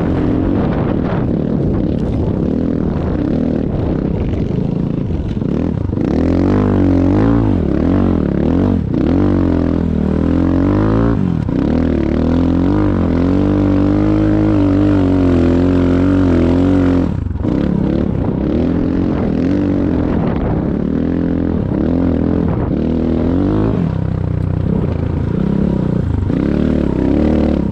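Enduro motorcycle engine running under load, its pitch rising and falling over and over as the throttle is opened and closed, with a short drop in the engine note about two-thirds of the way through.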